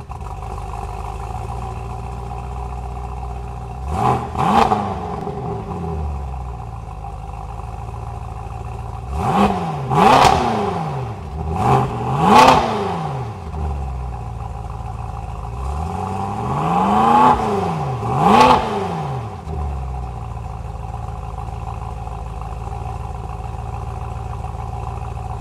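BMW M6 Competition Pack's 4.4-litre twin-turbo V8 idling steadily and blipped on the throttle several times, mostly in quick pairs, each rev rising and dropping straight back to idle: about four seconds in, around ten and twelve seconds in, and again around seventeen to eighteen seconds in.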